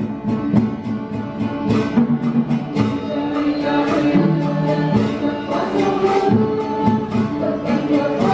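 Traditional Vietnamese ensemble music: plucked string instruments playing a melody over held notes, with frequent sharp percussive strikes.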